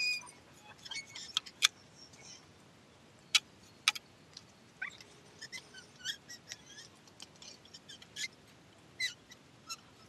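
A metal shedding comb worked through a Hokkaido dog's thick undercoat: scattered sharp clicks and ticks, three of them louder, with short faint high chirps between.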